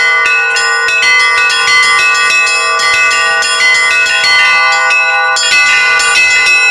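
Set of four Russian Orthodox church bells struck by electromechanical drives. Quick strikes on the smaller bells, about three a second, ring over the long sustained hum of a larger bell.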